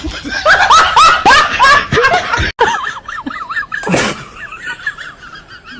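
A person laughing loudly in a quick run of bursts for about two seconds. After a cut, a single short sharp burst sounds about four seconds in, with a high wavering squeaky tone behind it.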